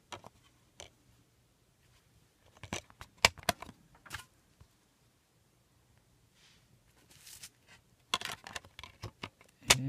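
Handling of a plastic DVD case: scattered sharp clicks and light knocks as the disc is pried off its centre hub and the case is moved about, with a short soft rustle a little before the end.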